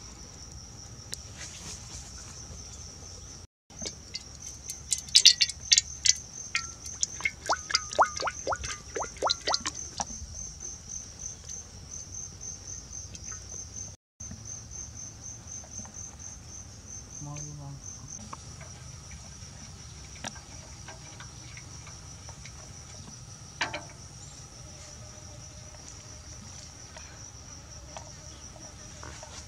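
Insects chirring in a steady, high-pitched pulsing trill. A quick run of sharp clicks, the loudest sounds here, comes from about five to ten seconds in.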